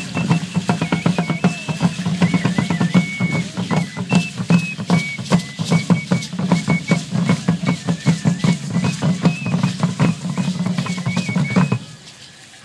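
Drumming for Aztec ceremonial dance: a drum beaten in a fast, steady rhythm, with a thin high melody stepping between a few notes above it. The music cuts off abruptly near the end.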